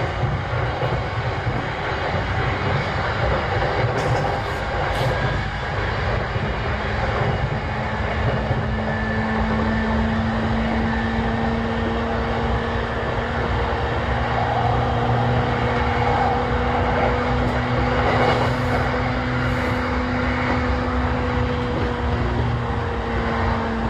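Running noise heard inside the motor car of a JR East E233-7000 series electric train travelling between stations: a continuous rumble of wheels on the rails. About seven seconds in, a low steady hum from the car's traction motors joins in and holds its pitch, dipping slightly near the end.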